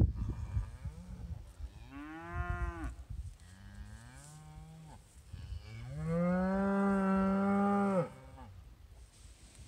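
Cows mooing: a short moo that rises and falls about two seconds in, a fainter one just after it, then a long, steady, loud moo a little past halfway that cuts off sharply.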